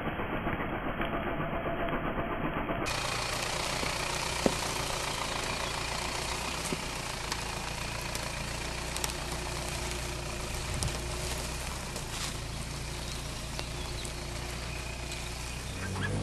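Jeep Wrangler Rubicon JL's 2.2-litre diesel engine running steadily at low revs while the Jeep crawls off-road, with a single sharp click about four and a half seconds in.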